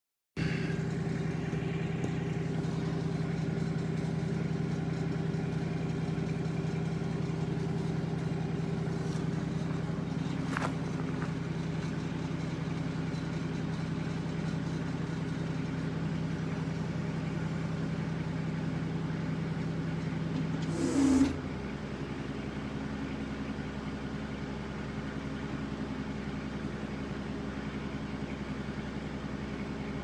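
Kubota L3700SU compact tractor's diesel engine running steadily, with a few faint clicks. About 21 seconds in there is a brief loud burst, after which the engine note is quieter and lower.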